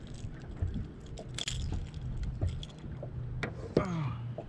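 Scattered clicks and rattles of a lipless crankbait and its treble hooks as a small spotted bass is unhooked by hand, with a brief wet rustle about a second and a half in. A steady low hum runs underneath.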